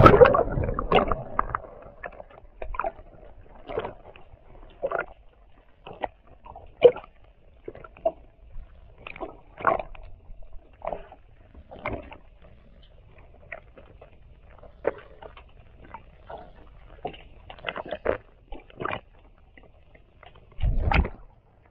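Sea water heard from an action camera held underwater beside a kayak: a splash as it goes in, then muffled sloshing with many scattered bubble pops and small clicks, and a louder rush about a second before the end.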